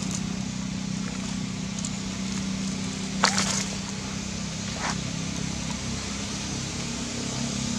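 A steady low hum, with two short crackles of dry leaves and twigs about three and five seconds in, the first the louder.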